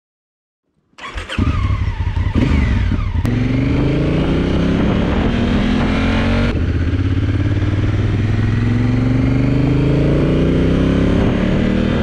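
A Honda Africa Twin's parallel-twin motorcycle engine running loud under acceleration, its pitch climbing steadily. It starts abruptly about a second in and comes in several edited stretches that cut off suddenly, the longest break about six and a half seconds in.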